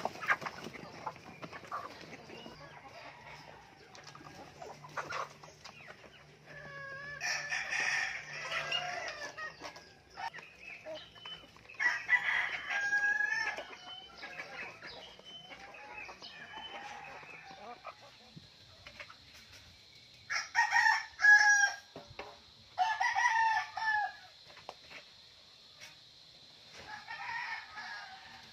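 Roosters crowing about five times in a chicken yard, with hens clucking in between. A steady high-pitched tone joins about two-thirds of the way through.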